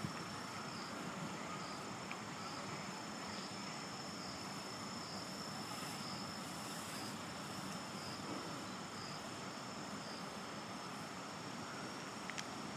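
An insect singing a steady, high-pitched trill that pulses slightly about once a second, over a steady background hiss. A faint click comes near the end.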